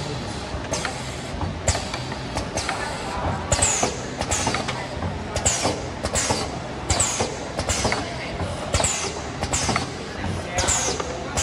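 Automatic paper-canister flanging machine running, its turntable indexing with a sharp clack about once a second. Many clacks are followed by a short hiss that falls in pitch, over a steady machine noise.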